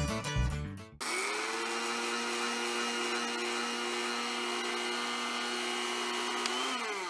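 Electric blender switched on about a second in, running steadily as it grinds chopped onion, garlic and green chillies into a fine paste, then winding down as it is switched off near the end.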